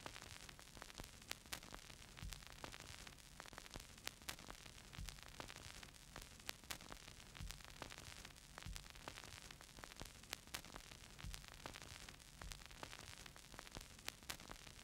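Faint static: a steady hiss with scattered, irregular crackling clicks, like surface noise.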